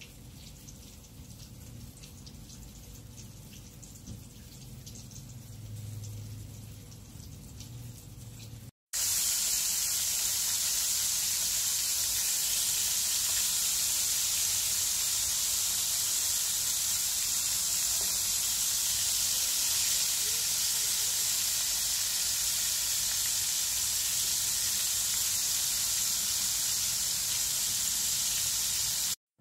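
Flour-coated shishamo frying in hot oil in a pan: a loud, steady sizzle that starts suddenly about nine seconds in and cuts off just before the end. Before it come only faint sounds of the fish being dredged in flour by hand.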